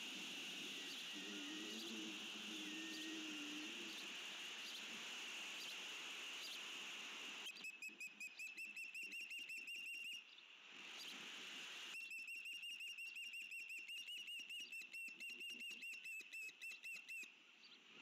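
An osprey giving long runs of rapid, high whistled chirps in two bouts, the second starting about two seconds after the first breaks off. Before the calling, a steady high-pitched hum.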